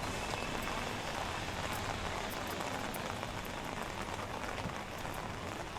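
Steady rain falling on a city street: an even hiss with scattered faint drop ticks.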